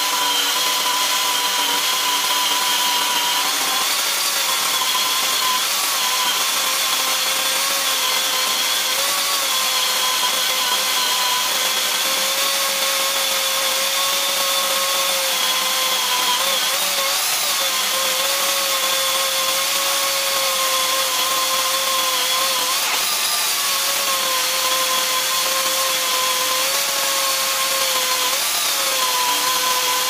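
Dnipro-M DSE-24DS electric chainsaw on a homemade sawmill, ripping a walnut log lengthwise into boards. The motor and chain run with a steady whine that dips briefly in pitch now and then as the cut loads it.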